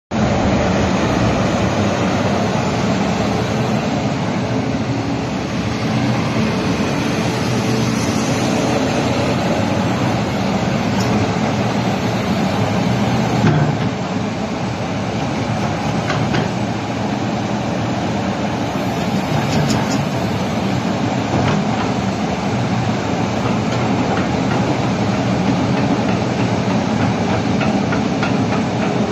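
Komatsu PC360 crawler excavator running steadily under operation, its diesel engine and machinery making a continuous heavy mechanical noise with a few clanks.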